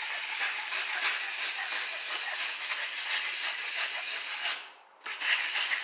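Steel knife blade rubbed in short circles on 120-grit sandpaper, a steady dry rasping that stops briefly just under five seconds in and then resumes: sharpening the edge by hand.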